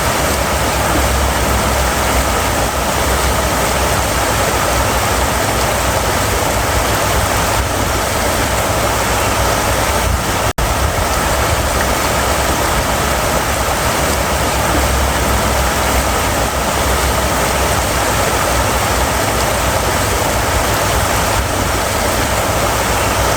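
River water flowing with a steady, full rush and a deep rumble underneath, broken only by a momentary dropout about ten seconds in.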